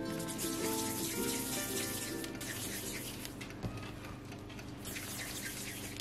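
Quiet background music carrying a slow melody, over a soft rushing hiss.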